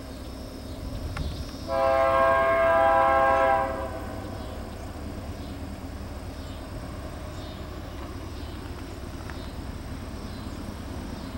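Diesel locomotive air horn sounding one blast of about two seconds, a chord of several tones, about two seconds in. After it, the steady low rumble of the approaching BNSF GE C44-9W locomotives.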